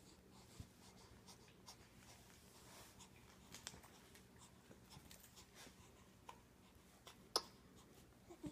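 Near silence in a small room: faint scattered scratches and soft clicks, with one sharper click a little after seven seconds in.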